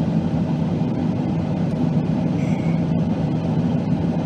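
Jet airliner cabin noise from a seat beside the wing engine in flight: a steady low rumble with a constant low hum.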